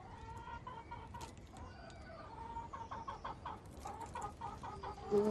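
Domestic hen clucking in runs of quick, short notes, with a few longer drawn-out notes in between.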